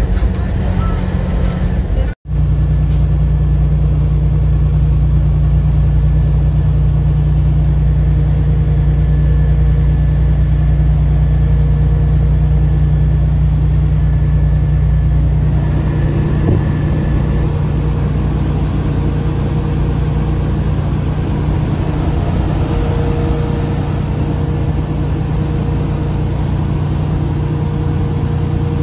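Steady low drone of a semi truck driving on the road. It drops out for an instant about two seconds in, and a little past halfway it turns hissier, with less of the low hum.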